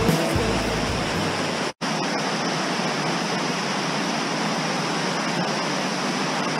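Steady rush of water pouring over a concrete dam spillway into the pool below. Low background music trails under it for the first second and a half, ending at a brief dropout.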